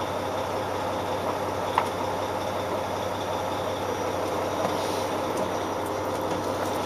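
Heavy diesel truck engine idling steadily, with one short sharp click about two seconds in.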